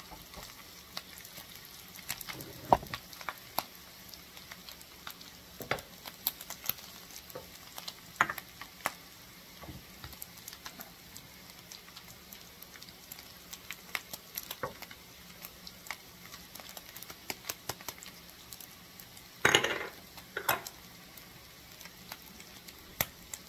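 Seasoned turkey sausage, peppers, onion and celery sizzling in a skillet while a utensil stirs them, with scattered clicks and taps against the pan. About twenty seconds in comes a louder scrape across the pan.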